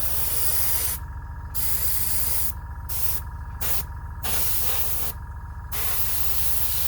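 Airbrush spraying a sand-coloured weathering wash in hissing bursts that stop and start several times with short breaks, over a steady low hum.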